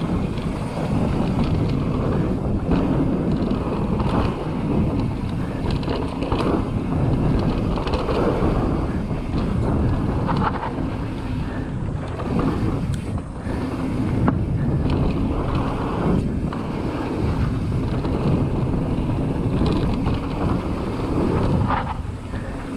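Mountain bike tyres rolling fast over a dry dirt and gravel trail, heard as a steady rumble mixed with wind buffeting the microphone, with a few sharp knocks along the way.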